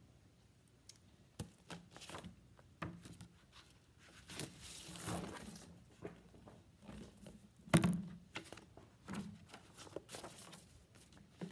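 Hardcover picture book being handled and its pages turned: paper rustling with soft taps, and one sharper knock about eight seconds in.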